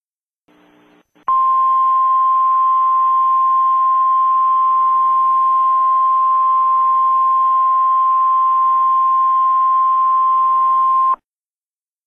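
National Weather Service 1050 Hz alert tone: a single steady high tone held for about ten seconds over a light hiss of static, starting just after a second in and cutting off sharply. It is the attention signal that announces a weather alert message is about to follow.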